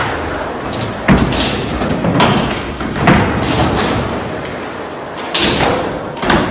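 Skateboard wheels rolling with a steady low rumble, broken by about five sharp clacks and thuds of the board hitting the ground.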